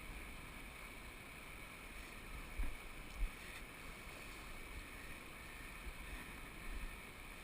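Steady rush of a flowing mountain stream, with wind buffeting the microphone in low gusts and a couple of soft thumps a few seconds in.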